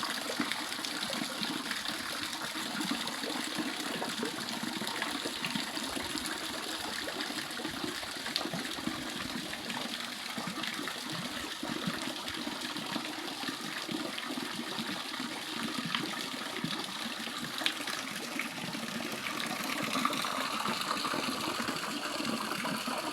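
Water gushing steadily from a shower spray onto the pigs in the pen, with a few faint ticks and knocks over it.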